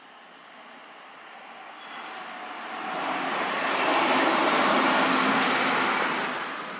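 A passing vehicle: its road noise swells over a few seconds, peaks about two-thirds of the way through, and fades away.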